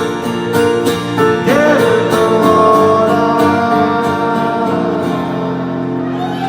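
Live guitar music: chords played on a steady beat for about the first two seconds, then held chords left ringing as the song closes.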